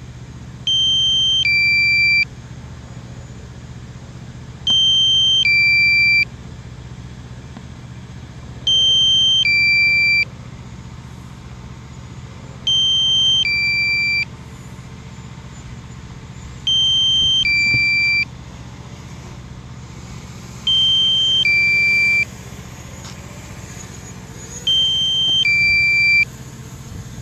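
DJI Mavic Pro low-battery alarm: a two-note falling beep, a higher tone then a lower one, repeating about every four seconds, warning that the drone's battery is running low.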